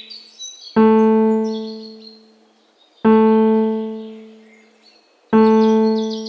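The same low piano-like keyboard note is struck three times, about every two and a quarter seconds, each ringing and fading away. High, fast bird trills and chirps sound between the notes, most plainly near the end.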